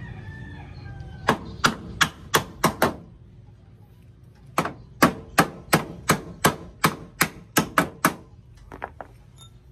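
Hammer blows driving the lower door hinge pin out of a Nissan Urvan's front door hinge: a quick run of six strikes, a short pause, then about ten more, with a couple of lighter taps near the end.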